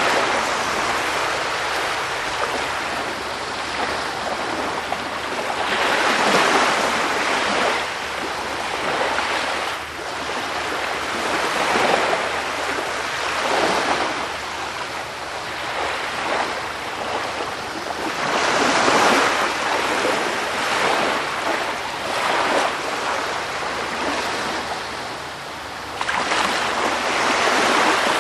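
Sea waves breaking and washing on a shore: a steady hiss of surf that swells louder with each wave every few seconds.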